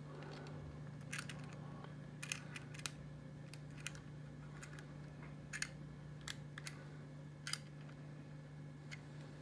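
Faint, scattered small clicks and ticks from a little SMA male-to-male antenna adapter being handled and fitted onto the antenna socket of a handheld TYT DMR radio, over a steady low hum.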